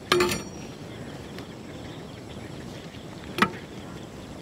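Steel slotted skimmer knocking against the cooking vessels while rice is ladled into a clay pot: a sharp metallic clink with a brief ring just after the start, and a second sharp click about three and a half seconds in, over a steady background hiss.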